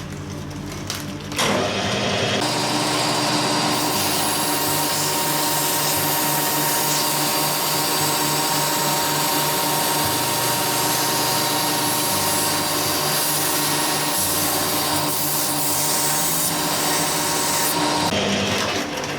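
Metal lathe running with the steel drive shaft spinning in it while the shaft is sanded down to fit a bearing. It is a steady machine hum under a rough rubbing sound, starting about a second and a half in and stopping near the end.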